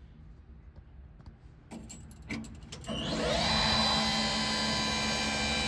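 A few clicks, then a small electric motor spinning up with a rising whine about three seconds in and running steadily for about two and a half seconds.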